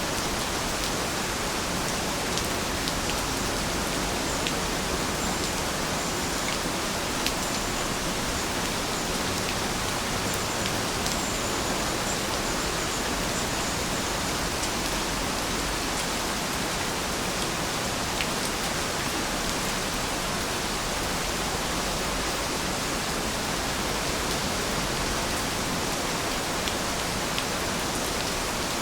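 Steady rainfall, an even hiss with scattered sharper drop ticks.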